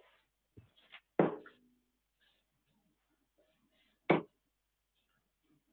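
Steel-tip darts striking a sisal bristle dartboard: two sharp thuds about three seconds apart, with a few faint ticks just before the first.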